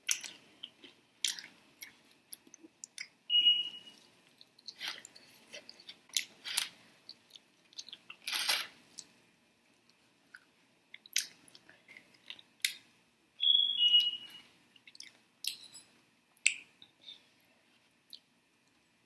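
Close-miked mouth sounds of eating sauced chicken wings: irregular wet chewing smacks and clicks with pauses between, louder clusters a few times, and a couple of brief high squeaks.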